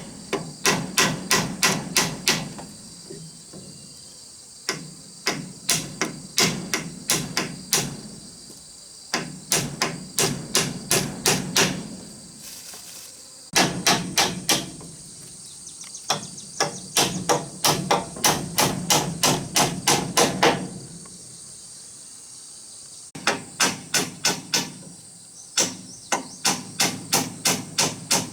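Hammer blows on wood in runs of quick, even strikes, about four a second, with short pauses between the runs. Crickets chirp steadily behind.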